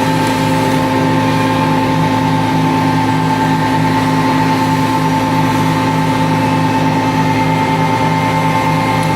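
CNC router running, a steady machine hum of several constant tones with a low tone that pulses evenly a few times a second.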